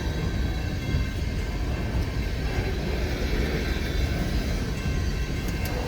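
Empty coal hopper cars of a long freight train rolling past in a steady rumble, with faint steady high tones above it.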